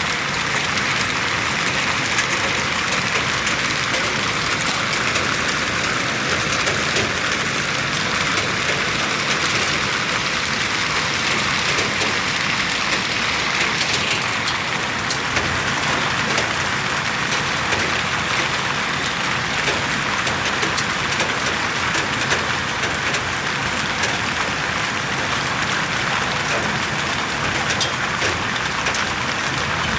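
Heavy rain with hail falling steadily: a dense, even hiss dotted with many small sharp impacts.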